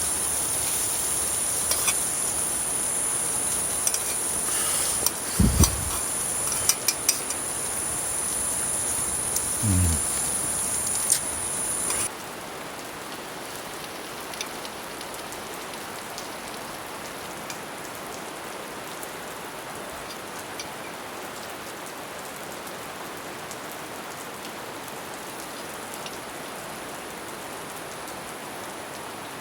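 Steady rain falling. For about the first twelve seconds a high, steady insect trill sounds over it with a few knocks and two low thumps; then the trill cuts off suddenly and only the rain is left.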